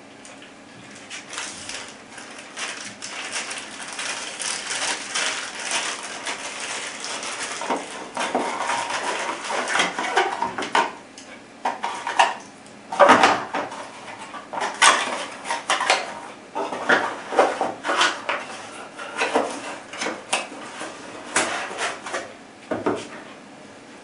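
Cardboard boxes and a battery charger with its cable being handled and packed on a tabletop. A continuous rustle comes first, then from about halfway a run of sharp clicks and knocks as the boxes and parts are closed and set down.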